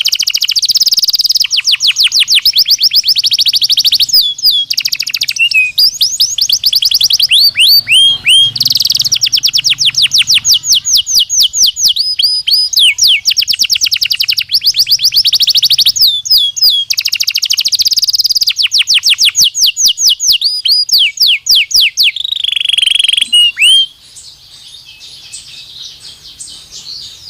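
Belgian canary singing: long, rapid trills of high, downward-sweeping notes, many per second, in changing phrases. The loud song breaks off near the end, leaving fainter chirping.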